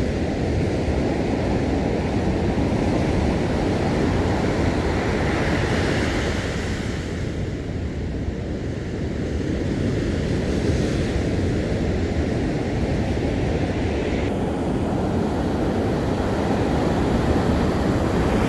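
Sea surf breaking and washing onto a beach, a steady rushing with a low rumble, swelling brighter about six seconds in.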